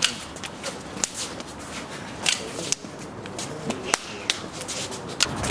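Open hands slapping against forearms and arms in a fast striking-and-parrying drill: a string of sharp, irregular smacks.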